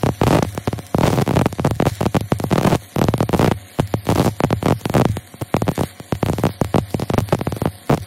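Stick-welding arc from a 5/32-inch E8010 cellulose rod crackling as it runs a downhill hot pass on steel pipe. The crackle surges and dips about once a second as the rod is whipped out and paused back into the puddle.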